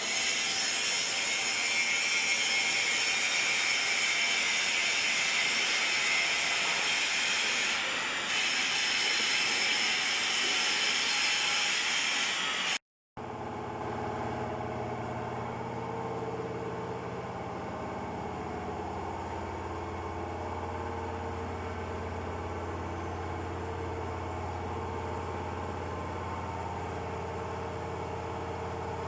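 Steady hissing rush of workshop machinery, then, after a cut, a steady machine hum with a low drone.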